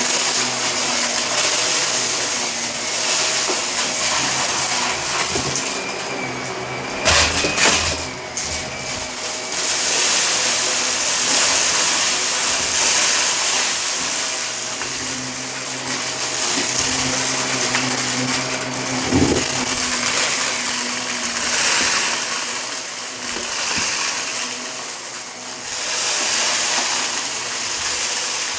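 Shark vacuum cleaner running over carpet, its noise swelling and fading with each quick push and pull. A burst of clicks and rattles comes about seven seconds in, and another single click later, as grit is sucked up.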